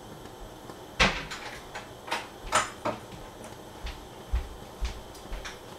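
Jars and a kitchen cupboard being handled: a sharp knock about a second in, then a string of lighter clicks and clunks with a few dull thumps.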